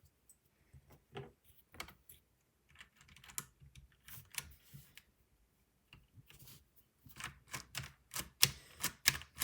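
Keycaps being pressed onto a Ducky mechanical keyboard and keys pushed down to check they are seated: a run of sharp plastic clicks. The clicks are sparse at first and come several a second over the last couple of seconds.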